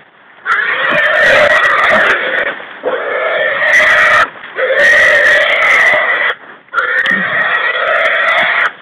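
A hog caught by the hunting dogs squealing loudly, four long drawn-out squeals of about two seconds each with short breaks between them.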